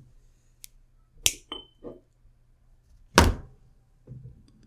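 Small flush cutters snipping a metal pin off a microswitch: a sharp snip about a second in with a brief high ring after it, a few small clicks, then a louder thunk about three seconds in.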